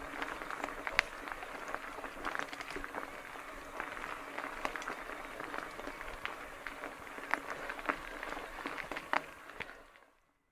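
Mountain bike tyres rolling over a gravel forest road: a steady crunching with frequent sharp clicks of small stones, fading out near the end.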